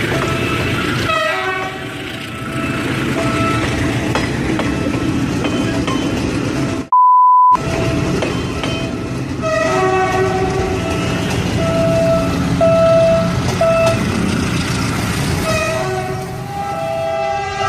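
Philippine National Railways commuter train running past, a steady rumble of coaches on the rails, with horns sounding repeatedly at several pitches over it. About seven seconds in, a short electronic beep briefly replaces everything else.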